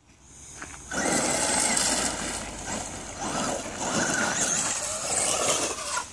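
Radio-controlled monster truck driving hard across loose gravel: motor revving up and down and tyres spraying gravel, starting about a second in.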